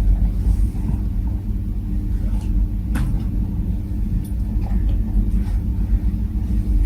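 Steady low mechanical rumble with a constant hum, and one sharp click about three seconds in.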